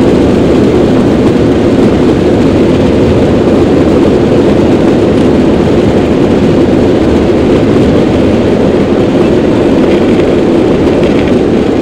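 Jet engines of a Boeing airliner at takeoff thrust heard inside the cabin during the takeoff roll: a loud, steady rush of engine and runway noise.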